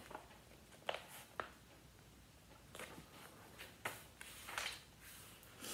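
Paperback book pages being turned: faint papery rustles and a few small clicks, then a breath drawn in near the end.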